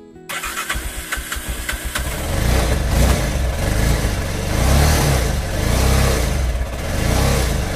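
Bajaj Pulsar motorcycle's single-cylinder engine starting on the electric starter about a third of a second in, catching quickly. It then runs with the throttle opened and closed, rising and falling every second or so. The self-start now works on a newly fitted 12V 9Ah battery.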